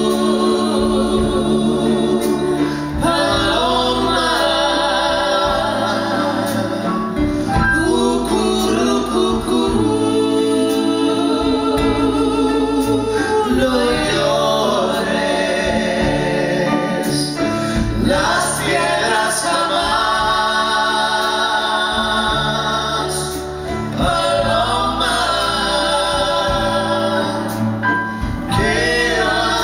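A live vocal trio, a man and two women, singing together in harmony into microphones over instrumental accompaniment, with low bass notes stepping from one to the next underneath.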